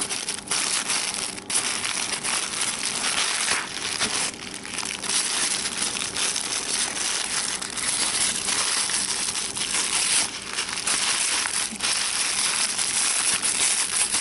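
Pink tissue paper crinkling and rustling continuously and unevenly as hands unwrap it from a small gift.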